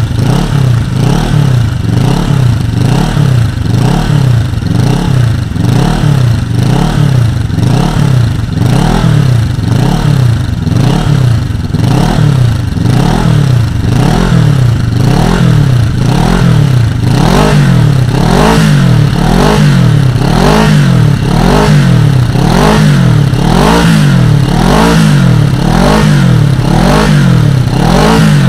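Kawasaki ER-6n's parallel-twin engine revving through a GPR 2-in-1 aftermarket exhaust, the throttle blipped again and again, each rev rising and falling in pitch about once a second. The revs come a little quicker and louder in the second half.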